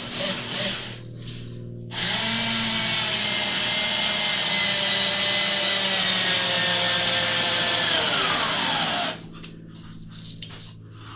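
Power drill driving a screw into wood, running steadily for about seven seconds. Its pitch falls as it slows and stops near the end.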